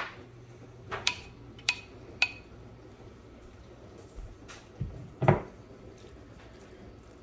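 Several separate sharp clinks and knocks of kitchenware against a nonstick frying pan, the loudest about five seconds in as a spatula starts stirring the chicken pieces in the pan, over a faint steady low hum.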